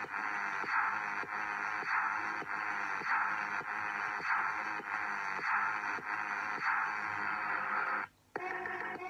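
Background music with a steady beat, sounding thin and tinny with little bass or treble. It cuts out briefly near the end and comes back with a different passage.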